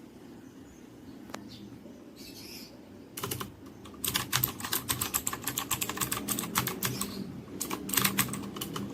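Typing on a Rapoo V500 Pro mechanical keyboard with clicky blue switches: a few keystrokes about three seconds in, then fast, continuous typing from about four seconds on.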